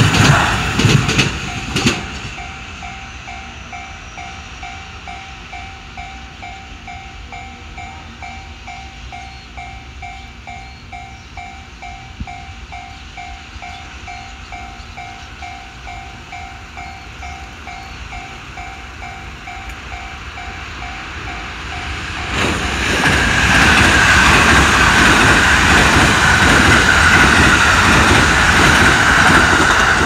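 Japanese level-crossing warning bell ringing with rapid, evenly spaced electronic clangs, the 'kan-kan' of a railroad crossing, after the last cars of a JR train rattle past. The bell stops about 22 seconds in. A second or so later a loud, steady rumbling rush rises and holds, the sound of a train.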